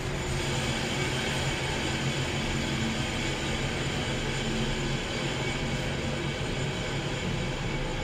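KONE traction elevator car travelling: a steady low hum and rumble with an even hiss of ride noise.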